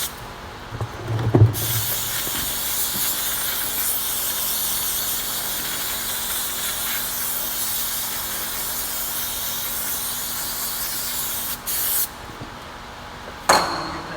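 Aerosol brake cleaner spraying in one long hiss of about ten seconds, cleaning the end of a hydraulic cylinder, then a brief final burst near the end. A low thump about a second in.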